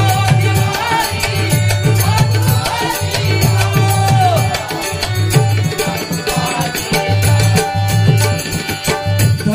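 Marathi bhajan music played live: dholki and tabla drumming a steady rhythm with harmonium and small hand cymbals, and a sung melody line over them.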